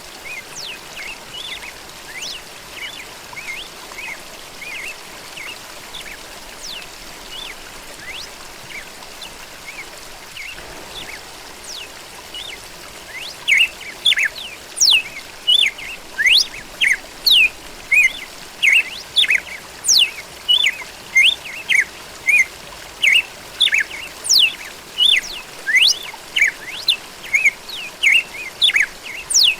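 Birds chirping over a steady background hiss. From about halfway, one bird close by starts giving loud, sharp chirps about three every two seconds.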